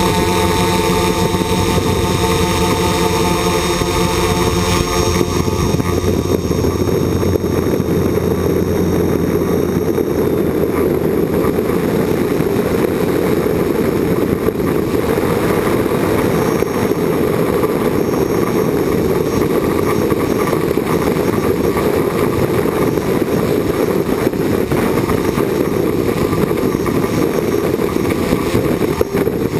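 Small multirotor drone's electric motors and propellers running in flight, heard from the camera it carries. For about the first five seconds they give a steady hum of several tones; after that a dense, rough rushing noise covers them.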